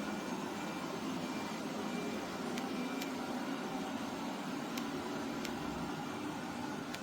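Robot vacuum cleaner running, with a steady motor and brush hum and a few faint ticks.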